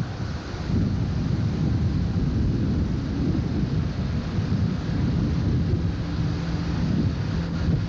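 Engine and road noise heard from inside a moving vehicle, a steady low rumble with wind buffeting the microphone; a steady engine hum comes through more clearly in the second half.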